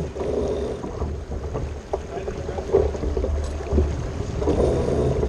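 Wind buffeting the microphone and water rushing along the hull of a J/105 sailboat under way, with a few scattered clicks and knocks from the deck.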